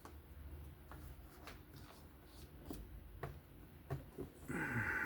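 Small clicks and taps of folding-knife parts and tools being handled during disassembly. Near the end a louder high whine starts, with a brief falling tone beneath it.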